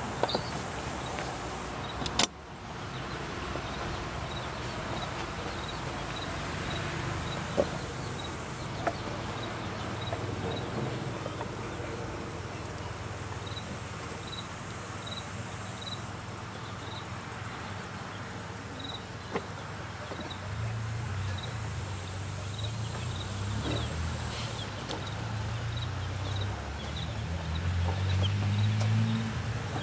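Wooden coop pop door being unlatched and let down into a ramp: a sharp clack about two seconds in, then a few lighter knocks. Behind it, insects buzz and chirp steadily, and a low rumble swells near the end.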